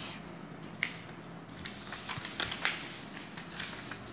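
Paper sheets rustling and being handled, with scattered short crinkles and taps.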